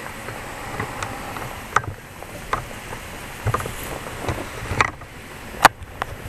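Steady outdoor background rumble and hiss with irregular sharp clicks and knocks. The loudest click comes near the end.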